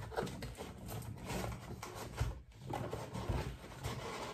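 Cardboard packaging rustling and scraping as pieces are handled and lifted out of a box, with a brief pause about two and a half seconds in.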